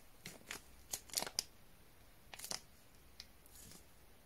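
Small plastic oscilloscope probe accessories being handled: a few scattered clicks and rustles, with a cluster about a second in and another about two and a half seconds in.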